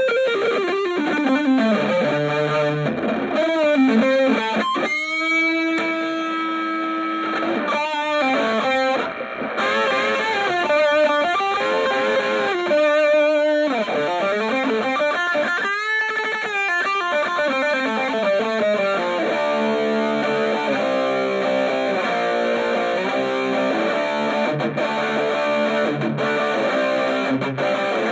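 Gold Les Paul electric guitar played through an Orange Micro Terror hybrid amp (valve preamp, solid-state power stage) with distortion: lead lines with string bends, turning to repeated chord riffs about two-thirds of the way through.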